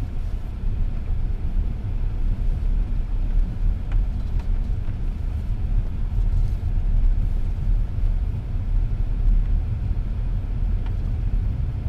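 Steady low rumble of a car's engine and tyres at low speed, heard from inside the cabin.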